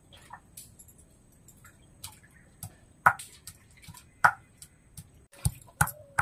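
Hand-held stone pestle pounding ginger on a ridged stone grinding slab (sil): sharp stone-on-stone knocks, two loud ones a little over a second apart, then three quicker ones near the end.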